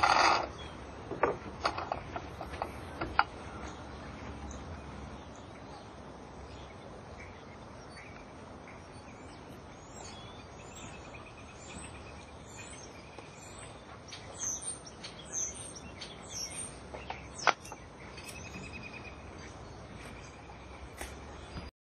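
Small metal tin handled against a wooden rail: a few sharp clicks and taps in the first three seconds and one more about 17 seconds in. Birds chirp now and then over a steady outdoor hiss.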